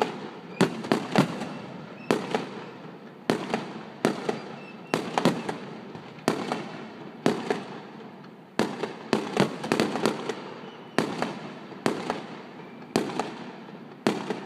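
Aerial firework shells bursting overhead: a sharp bang about every second, some coming in quick pairs or threes, each fading out over a fraction of a second.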